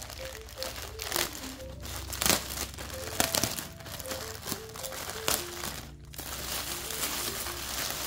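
Clear plastic polybag crinkling and rustling in irregular bursts as hands handle it and pull it open, with some tissue paper rustle near the end. A soft, simple background melody plays underneath.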